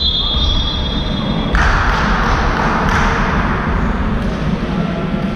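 A referee's whistle blast in a large sports hall, its high steady tone fading out about a second and a half in. Hall noise follows, with scattered thuds of footsteps and basketball bounces on the court floor.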